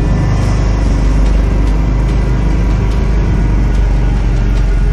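Segway Snarler ATV engine running steadily with a deep rumble as the quad pushes its front plow blade through heavy snow.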